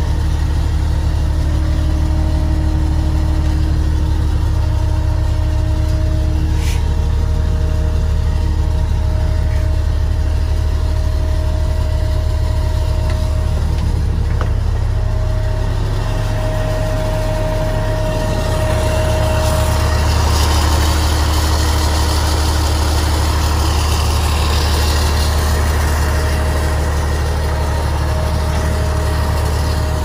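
Diesel engine of a Komatsu WA500-1 wheel loader idling steadily, heard from inside the cab. There is a little more hiss for a few seconds past the middle.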